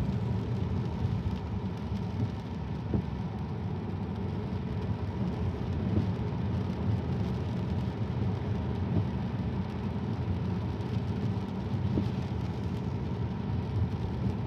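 Steady tyre and road noise from a Tesla driving on a wet road, heard inside the cabin, with faint short ticks about every three seconds.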